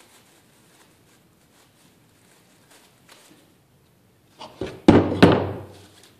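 Two cordless drills set down one after the other on a plywood deck: a light knock, then two heavy thunks about a third of a second apart.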